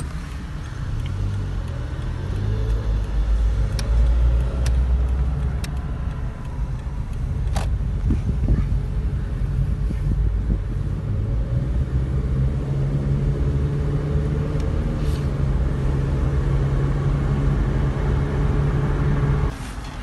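Toyota car's engine and road noise heard from inside the cabin: the engine pulls away with a rising note over the first few seconds, then runs steadily with a low hum. The sound drops suddenly just before the end.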